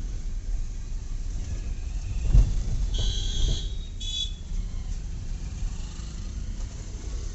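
Low rumble of a Hyundai hatchback driving slowly over a rough street, heard from inside the cabin, with a thump a little over two seconds in. A high beep sounds twice, about three and four seconds in.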